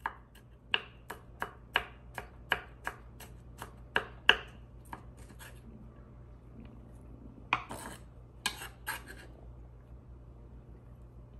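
Chef's knife mincing garlic on a wooden cutting board: a quick run of sharp knocks, about three a second, for the first five seconds or so, then a few more knocks about two seconds later.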